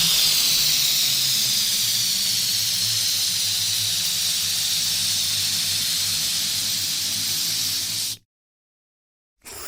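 Electric balloon inflator running: a steady hiss of rushing air over a low motor hum, which cuts off abruptly about eight seconds in and starts up again after about a second of silence.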